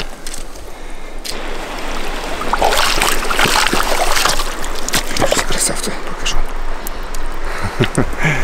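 River water running and splashing in the shallows, louder for a couple of seconds in the middle, with scattered sharp clicks and knocks toward the end.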